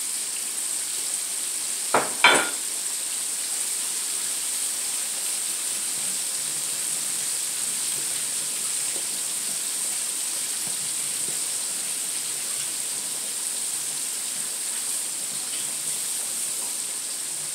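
Breaded pig feet deep-frying in a wok of hot oil: a steady sizzle, with two sharp cracks about two seconds in.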